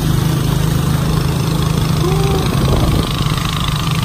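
Motorboat engine running steadily under way, with water rushing and churning along the hull.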